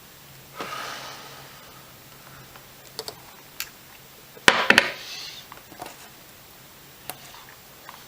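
Small clicks and taps of hand soldering work on an XT60 connector, with a cluster of louder knocks about halfway through and two brief hisses.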